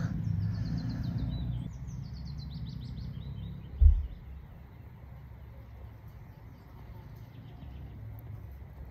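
A songbird sings two quick phrases of rapid high notes, the second running down in pitch, over a low rumble. A single dull low thump comes about four seconds in, then a faint outdoor background.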